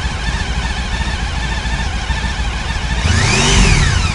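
A 2007 Honda ST1300 police motorcycle's V4 engine idles steadily, then is revved once near the end, its pitch rising and falling back. This is the stock engine note, with nothing modified.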